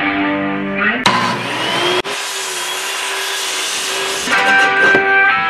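DeWalt circular saw running and cutting through plywood: the saw comes in suddenly about a second in with a rising whine, then cuts steadily until it stops a little after four seconds. Guitar music plays before and after it.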